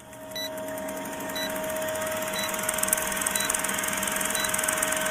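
Old film projector countdown sound effect: a steady projector whir with fast fine clicking and a steady tone, and a short high blip once a second as each number of the countdown ticks by.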